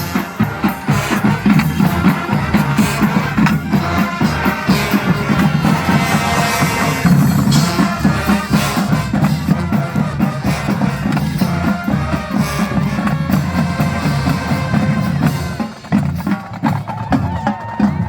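Marching band playing: horns over a drumline beat, with a brief dip in loudness near the end.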